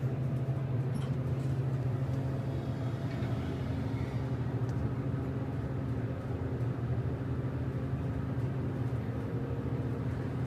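International elevator running on a trip between floors: a steady low hum from the drive, heard inside the cab.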